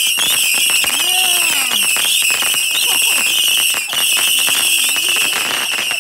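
Whistling ground firework going off: a loud, shrill, continuous 'neeeer' whistle over a rapid crackle of small pops. The whistle breaks off briefly about four seconds in.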